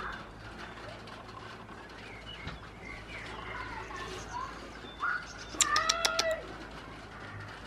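A goat bleats once, loudly, about five and a half seconds in: a wavering call lasting under a second. Fainter short calls come before it, over a steady background hiss of rain.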